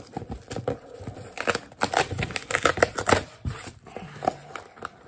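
Cardboard toy box handled and opened by hand, with a paper instruction sheet pulled from inside: a run of rustles, scrapes and small clicks, busiest in the middle.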